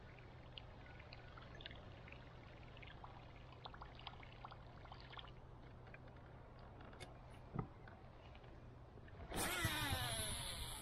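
Faint ticks and water trickling as a Whopper Plopper topwater lure is reeled in across calm water, with a single knock about seven and a half seconds in. Near the end comes a cast: the baitcasting reel's spool whirs loudly as line pays out, its pitch falling as the spool slows.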